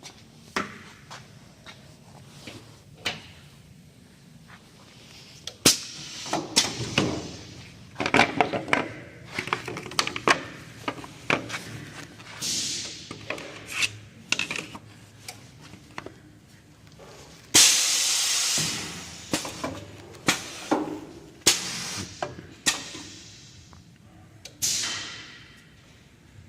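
Seam welding machine at work: a run of sharp metallic knocks and clicks mixed with short bursts of hiss, the longest hiss starting past the middle and fading away over about two seconds.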